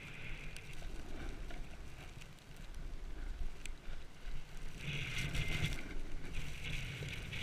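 Wind rushing over the microphone of a camera worn by a rider descending a groomed ski slope, with the hiss of edges sliding over packed snow. The scraping grows louder and rougher about five seconds in.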